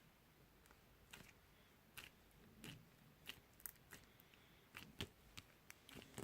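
Slime being squeezed and poked by hand, giving faint, irregular little clicks and pops.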